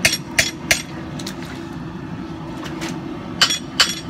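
Hand hammer striking the steel drift set in the eye of a hot tomahawk head clamped in a vise, metal on metal with a ringing note. Three quick blows at the start, a couple of light taps, then two more hard blows near the end. The head is being tapped over slightly to line the eye up with the handle's axis.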